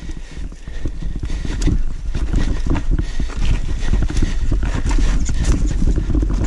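Downhill mountain bike riding a rough dirt trail, heard from a camera on the bike or rider: a constant low rumble of tyres over dirt and roots, with a rapid, irregular clatter of chain, suspension and frame knocking over the bumps.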